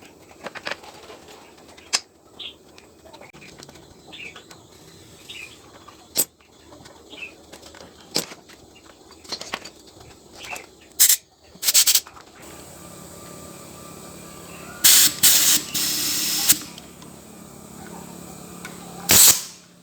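Scattered light clicks and taps, then a steady hum starts about twelve seconds in. Over the hum come several short bursts of spraying hiss, the last near the end.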